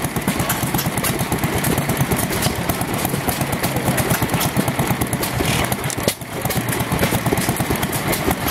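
Antique hit-and-miss stationary gas engines running, a rapid, uneven patter of exhaust pops and mechanical clicks over a steady low hum.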